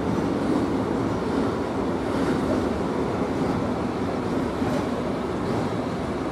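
Long intermodal freight train of container and tank wagons rolling past, a steady noise of wheels running on the rails.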